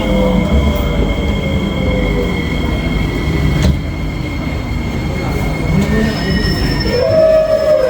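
Kawasaki-Sifang C151B metro train heard from inside the car as it runs and slows, with the steady high electric whine of its drive over the rumble of wheels on rail and a tone that slowly falls in pitch. Near the end a louder whine starts that dips and rises again, the odd braking sound this train makes.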